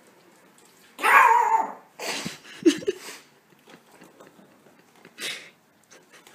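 French bulldog puppy barking: one loud bark about a second in, then a few shorter, quieter sounds over the next two seconds and another short one near the end.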